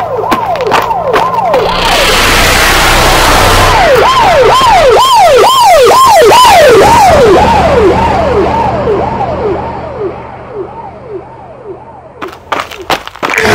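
Siren-like wailing tone swooping up and down about twice a second, with a rushing noise that swells in and later fades away as the wail dies down; a few sharp clicks near the end.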